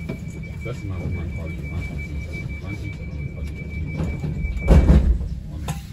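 Inside a Southern Class 377 electric train running between stations: steady low rumble with a thin high-pitched tone held steady, which stops just before a loud thud about five seconds in.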